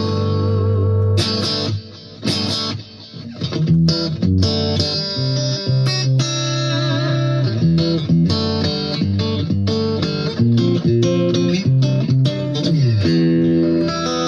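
Electric guitar with single-coil pickups played through a compressor pedal and delay into a small amp: sustained, picked lead notes and phrases. It dips quieter for a moment about two seconds in, and a note slides down in pitch near the end.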